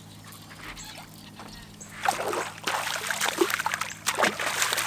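A hooked fish splashing at the water's surface on the line, a run of quick splashes starting about two seconds in.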